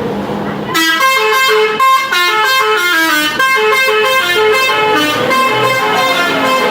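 Telolet multi-tone bus horn playing a quick tune of short stepped notes, starting about a second in.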